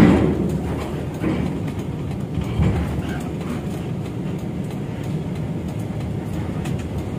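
Steady low rumble of engines, with a heavy thump at the very start and a lighter knock a little under three seconds in.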